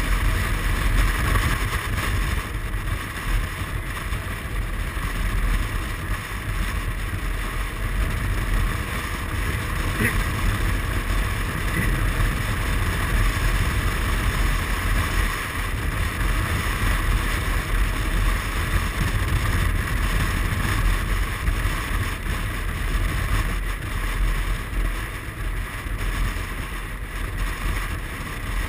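Wind rushing over the microphone on a moving 2007 Suzuki Burgman 400 scooter, with the scooter's single-cylinder engine running steadily underneath at cruising speed.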